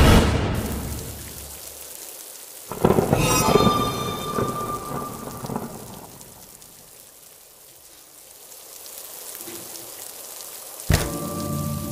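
Steady rain with a loud thunderclap about three seconds in that rumbles and dies away over the next few seconds. Near the end a sudden sharp hit cuts in.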